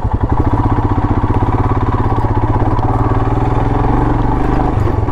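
Royal Enfield Himalayan's single-cylinder engine running at low revs while riding off-road, a steady, even pulsing beat that shifts slightly near the end.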